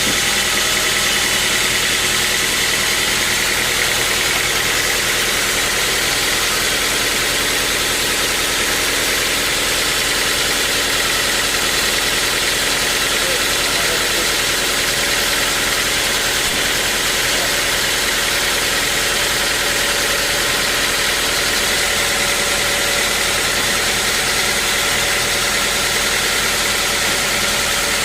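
Bandsaw sawmill running steadily: a constant engine-like hum with a steady high whine over it.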